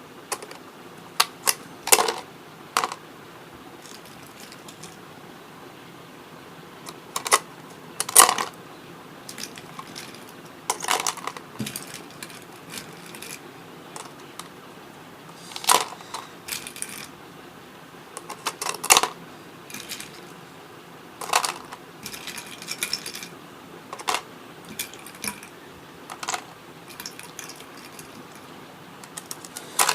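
Ice cubes dropping and clattering into a small plastic ice-cream box, heard as irregular hard clicks and knocks, sometimes singly and sometimes in quick clusters, with pauses of a few seconds between.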